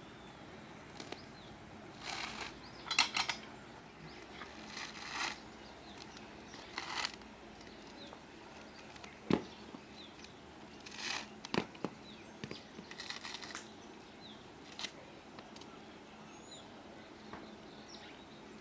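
Coconut husk being pried and torn away on a hand-operated coconut dehusking tool: a series of short, irregular tearing and ripping noises, with a sharp click about nine seconds in.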